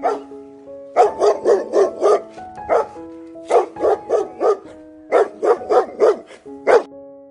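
A pit bull-type dog barks in three quick runs of several sharp barks each, over soft background keyboard music.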